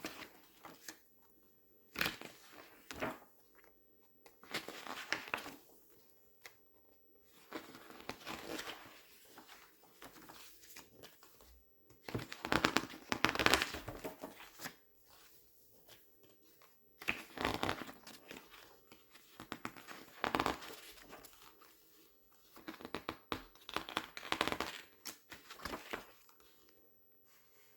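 Glossy paper pages being turned and squeezed, crinkling and rustling in irregular bursts with short crackles between quieter pauses.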